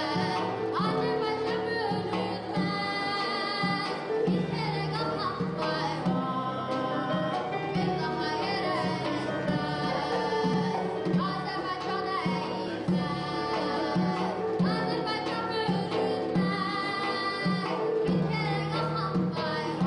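A girl singing an Azerbaijani folk song, backed by instrumental music and a steady beat on a ghaval frame drum.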